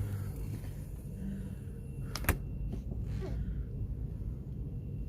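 Single-door chiller running after its R134a recharge, a steady low hum, with one sharp knock a little over two seconds in.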